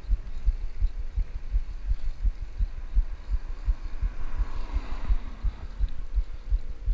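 Wind buffeting the microphone of a camera on a moving pedal bike, heard as low, irregular thumping several times a second. A car passes about four to five seconds in.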